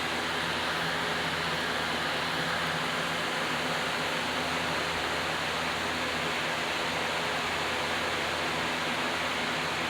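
A steady, unchanging hiss with a faint low hum underneath.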